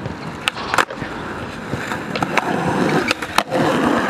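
Skateboard on asphalt: sharp clacks of the board popping and landing about half a second in, a few more clacks, then the wheels rolling over the rough surface through the latter half.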